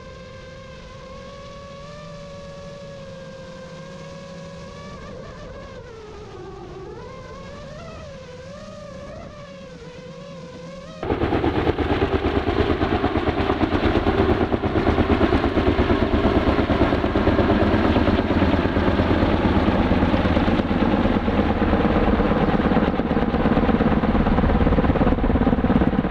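Kaman K-MAX helicopter's rotors beating loudly and rapidly overhead as it hovers and lifts a crushed car on a long sling line. The loud rotor chop cuts in suddenly about eleven seconds in. Before that there is a quieter, wavering tone.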